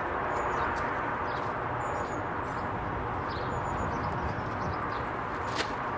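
Outdoor ambience: a steady hiss with small birds giving short, high chirps now and then, and scattered light taps, a sharper one near the end.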